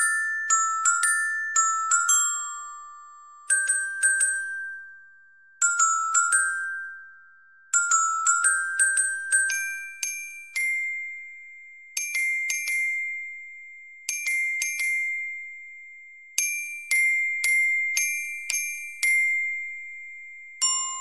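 Glockenspiel (sampled notation-software playback) playing a solo melody of short, ringing, bell-like notes in phrases of repeated notes, with brief pauses between phrases. The melody moves higher about ten seconds in.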